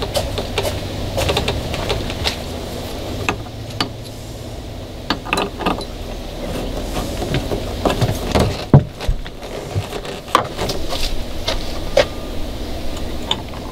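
Scattered small metal clicks and light knocks of stainless-steel boat bow-light fittings being handled and screwed down by hand on the bow plate, over a steady low hum.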